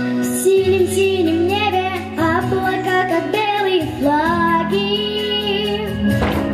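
An eight-year-old girl singing a song into a microphone over instrumental accompaniment; her voice comes in about half a second in.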